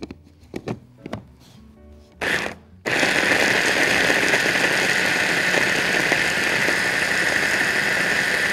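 Electric food chopper blending basil, garlic, walnuts and cheese into pesto: a short pulse about two seconds in, then running steadily from about three seconds in. A few handling clicks come before it starts.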